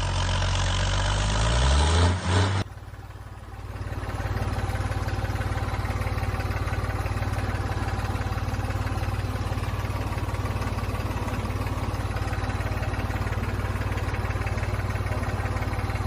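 A motor running steadily with a fast, even pulse, which begins after a sudden cut about two and a half seconds in. Before the cut there is a different, louder sound with changing pitch.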